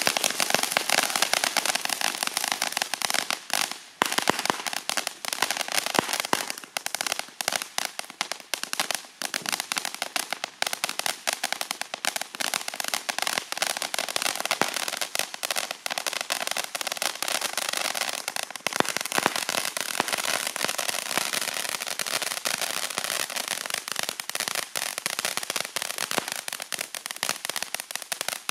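Ground fountain firework spraying sparks: a dense, continuous crackle of rapid sharp pops over a high hissing rush.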